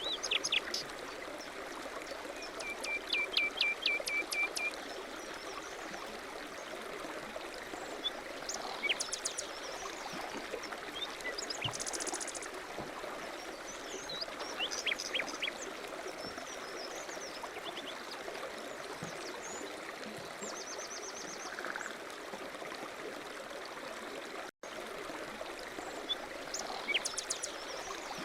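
Steady running water like a stream, with small birds chirping in short, quick trills on and off over it.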